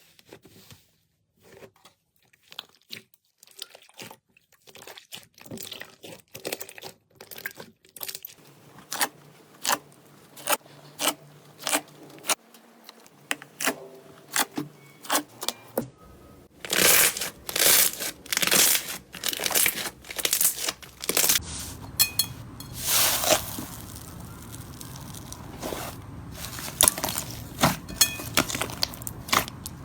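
Slime being squeezed and poked by hand, giving irregular crackling and popping clicks that start sparse and quiet and grow denser and louder about halfway through.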